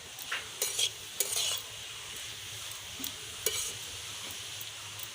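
A spatula scraping and stirring carrots in a kadai as they fry in ghee, over a steady soft sizzle. A handful of short, irregular scrapes, most of them in the first second and a half.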